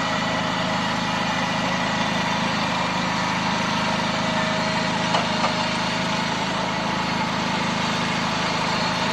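Honda riding lawn tractor's engine running steadily as the tractor drives along.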